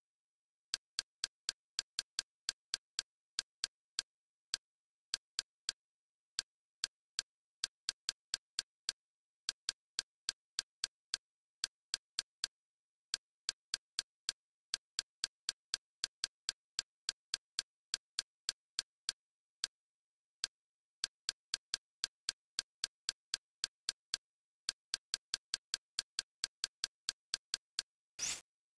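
Kodi's menu navigation sound: short, sharp clicks, one for each step as the cursor moves down a list, about two or three a second at uneven spacing with a few short pauses, and a slightly longer click near the end.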